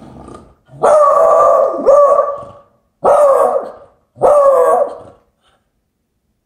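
Beagle barking on guard at the door: a long two-part bark starting about a second in, then two more long, drawn-out barks.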